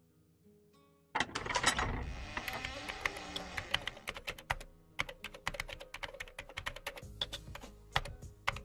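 Computer keyboard typing: quick, irregular key clicks that begin after a sudden burst of noise about a second in.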